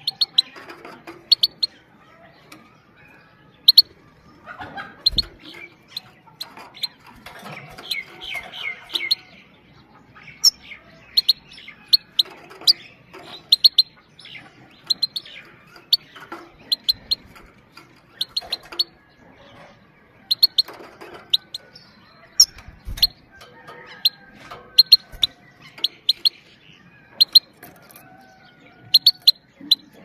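Female Himalayan goldfinch giving short, sharp 'pit-pit' calls in quick clusters of two to four, repeated every second or so, with a brief twittering run about eight seconds in. A couple of soft low thumps sound about five seconds in and again past the twenty-second mark.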